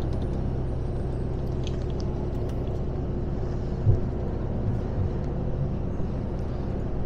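Steady low drone of a lorry at motorway cruising speed heard inside the cab, engine and road noise together, with one soft knock about four seconds in.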